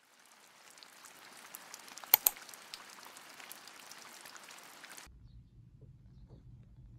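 Light rain falling: a soft, faint patter of drops with two sharper clicks about two seconds in. It cuts off suddenly about five seconds in, leaving only a faint low hum.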